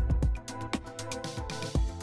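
Background music with a steady beat, a strong bass line and evenly spaced percussive strikes.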